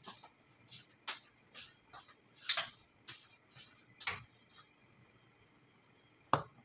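Chicken stew simmering in a pot, its sauce bubbling with faint, irregular pops and ticks, then a sharper knock near the end.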